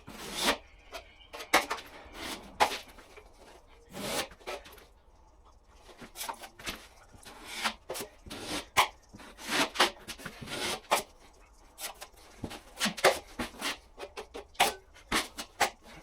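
Plastering trowel scraping a top coat of plaster across a plasterboard patch, in irregular strokes with short pauses between them.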